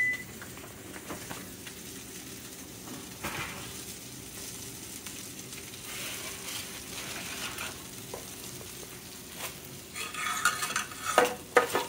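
Onions sizzling in a stainless skillet while a utensil stirs and scrapes through them. Near the end comes a louder run of metal clatter as a foil-lined sheet pan is handled out of the oven.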